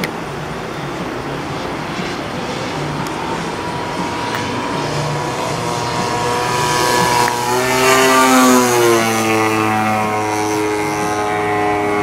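Extra 330 radio-controlled aerobatic plane's engine and propeller during a low knife-edge pass. The note rises in pitch and grows louder as it approaches, peaks about eight seconds in, then drops to a lower steady pitch as it goes by.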